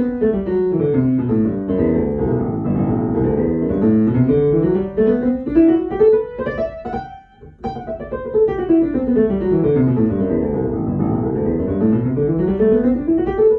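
Digital piano playing a G major scale one hand at a time. It runs down the keyboard and back up, twice, with a short break about seven seconds in.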